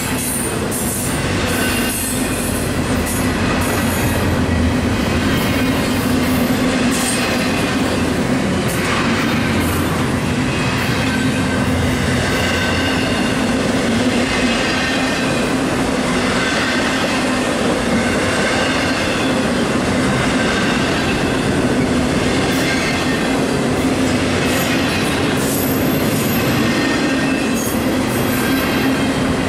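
Double-stack intermodal well cars of a long freight train rolling past slowly: a steady rolling noise with wheels squealing in thin high tones, and occasional clicks from the wheels.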